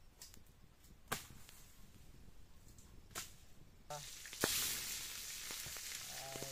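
Wood fire crackling with two sharp pops, then about four and a half seconds in a sudden loud sizzle as fish fries in hot oil in a wok, continuing steadily.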